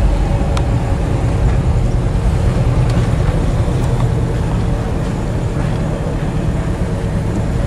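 Car engine and road noise heard from inside the cabin as the car pulls in to park: a steady low rumble, with a few faint clicks.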